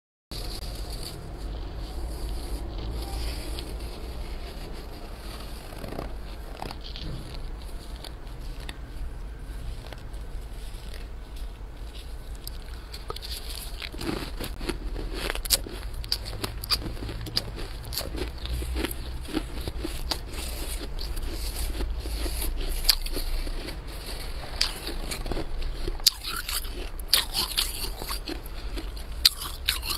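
Thick, snow-like frost inside a chest freezer being dug into and scraped by a gloved hand: crisp crunching and crackling. It is sparse at first and comes thicker and louder from about halfway through, over a low steady hum.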